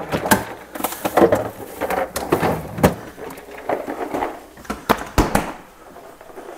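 Refrigerator being rummaged: a series of knocks and rattles from the fridge's shelves and contents as a plastic egg container is taken out, then a heavier thud, likely the fridge door shutting, a little after five seconds in.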